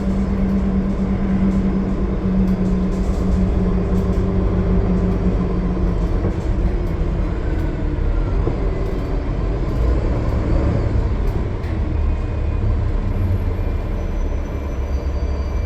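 Gillig Low Floor transit bus with a Cummins ISL9 diesel and Voith automatic transmission cruising at highway speed: a steady engine drone and deep road rumble, with a hum that fades after about five seconds.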